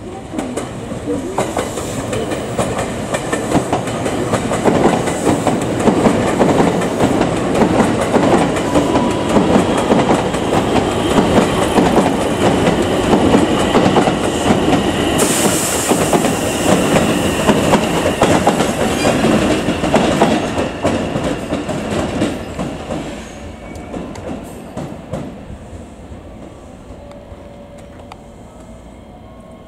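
JR West 225 series electric train running over turnouts and rail joints: a dense, rapid clatter of wheels over the points that builds over the first few seconds and stays loud through the middle. About halfway there is a short burst of high hiss, and the clatter fades away after about 23 seconds.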